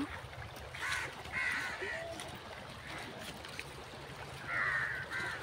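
Crows cawing, several harsh calls spread out, with a longer and louder caw near the end.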